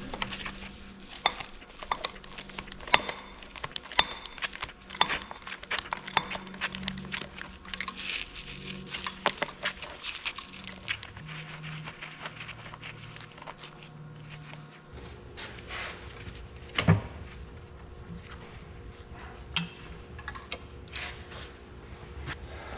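Hand ratchet and socket clicking, with metal tools and bolts clanking on the cast-iron rear-end housing of an Oliver 1855 tractor as rusted bolts are worked loose. One louder clunk comes about 17 seconds in.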